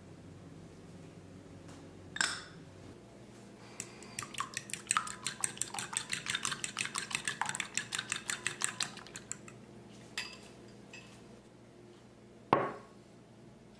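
Eggs being beaten in a glass bowl, the utensil clicking rapidly against the glass at about six strokes a second for some five seconds, with a light clink before and after. Near the end a frying pan is set down with a single louder knock.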